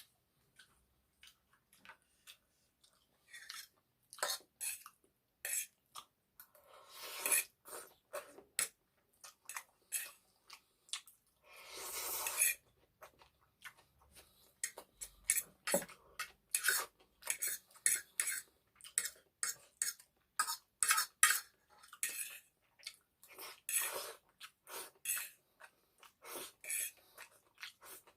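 Cutlery clinking and scraping against a plate, with close-up chewing of egg noodles and chicken curry. The sound comes as many short irregular clicks, with a few longer smeared noises in between.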